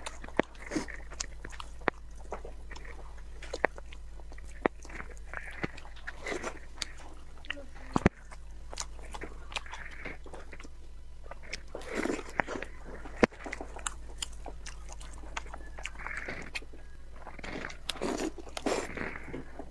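Close-miked eating of soft, skin-on pig thigh meat: wet chewing and lip-smacking in irregular bursts, with a few sharp mouth clicks.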